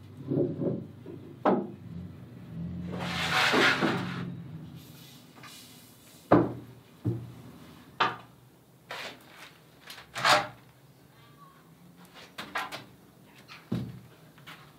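Scattered wooden knocks and creaks: footsteps on a steep wooden stair, then a wooden window and shutter being handled.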